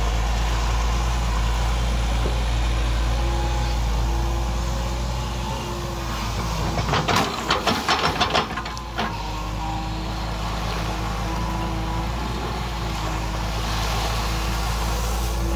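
Volvo EW145B excavator's diesel engine running steadily with a constant hum. About seven seconds in, a rapid run of loud splashes lasting about two seconds as the bucket churns into muddy water.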